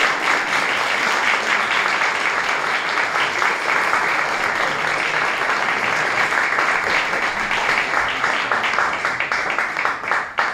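Audience applauding steadily, the clapping thinning into scattered claps near the end.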